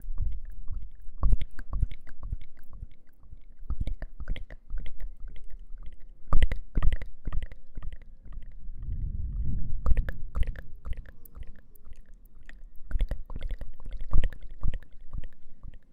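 Close-miked eating sounds: crunching and chewing with many sharp, crisp clicks, and a denser low rumbling stretch around nine seconds.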